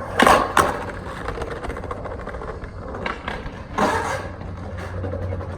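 Skateboard wheels rolling with a steady low rumble, with a few sharp clacks of the board: two close together near the start, more a little past halfway.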